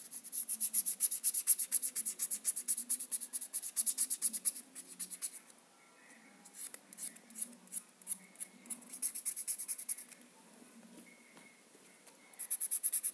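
Black felt-tip marker scribbling quickly back and forth on paper, colouring in. The strokes run fast and even for about five seconds, turn sparse, pause briefly, and pick up again fast near the end.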